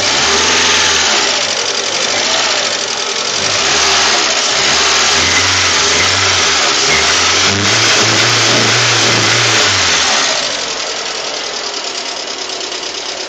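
Lada Priora's VAZ-21126 1.6-litre 16-valve engine revved up and held several times, then dropping back to idle about ten seconds in. Its characteristic knock, heard hot or cold after a rebuild with 82.5 mm pistons, is taken by the owner for either hydraulic lifter noise or piston knock.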